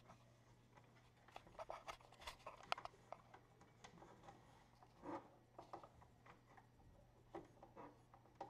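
Faint scattered clicks, taps and light scrapes from hands handling the metal frame and base panel of a Leapfrog Creatr XL 3D printer, loudest in a cluster between one and three seconds in, over a steady low hum.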